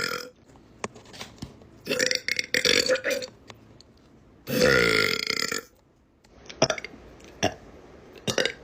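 A woman burping loudly: a choppy burp about two seconds in, then a long, loud, drawn-out burp with a wavering pitch about halfway through. A few short, quieter clicks follow near the end.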